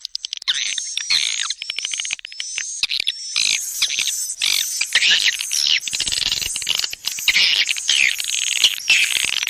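Swiftlet calls used as a swiftlet-house lure sound: many birds chirping and twittering densely over one another, with short falling whistled notes, after a rapid run of clicks that stops about half a second in.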